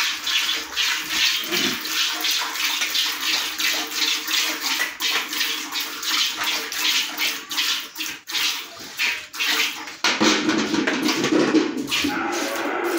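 Hand milking a cow: rhythmic hissing squirts of milk hitting a steel pot, one after another, louder and fuller from about ten seconds in.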